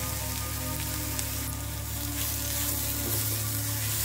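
Mushrooms, onion and freshly added chopped tomato sizzling steadily as they fry in oil in a nonstick pan, with a spatula stirring them near the end.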